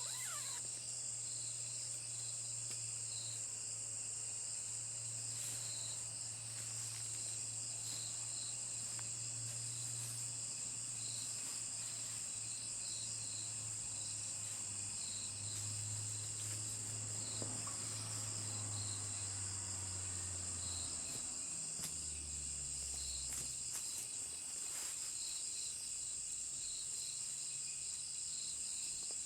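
Insects chirping in a steady chorus: a continuous high shrill tone with regularly repeated lower chirps. A faint low hum runs underneath and changes pitch about two thirds of the way in.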